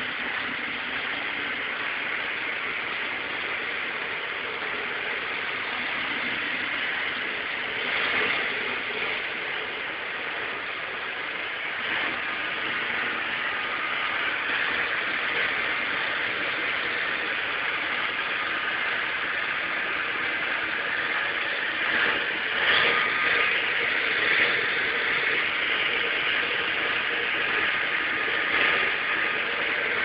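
Three-phase submersible pump running, circulating water through a hose back into its tank: a steady rushing hiss. A faint steady whine joins about a third of the way in, and a few brief knocks come through, most of them just past the middle.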